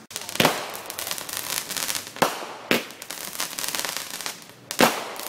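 Fireworks going off overhead. There is a sharp bang half a second in, two more close together just after two seconds, and another near the end, with continuous crackling in between.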